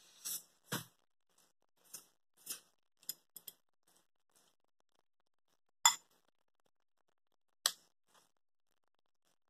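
Close eating sounds: a slurp of ramen noodles at the start, then short clicks and clinks of a metal fork against the dishes, with two sharper clinks in the second half.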